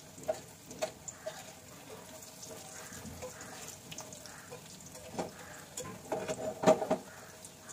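Battered fish cutlets sizzling in hot oil in a frying pan, with a spatula clicking and knocking against the pan as they are turned. A few light clicks come early and a cluster of louder knocks near the end.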